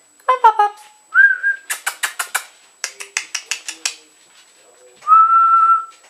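A person whistling and smacking their lips to call puppies: a short falling cry, a brief steady whistle, two quick runs of sharp smacking clicks, then a longer steady whistle near the end.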